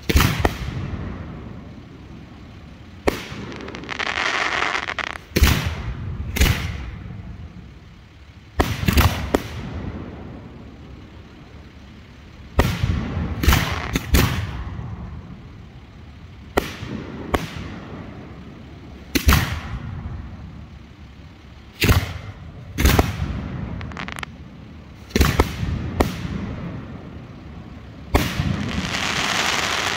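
Hand-fired 3- and 4-inch aerial firework shells launching and bursting: a string of sharp bangs every second or two, some in quick pairs, each trailing off in echo. There are longer stretches of hiss about four seconds in and again near the end.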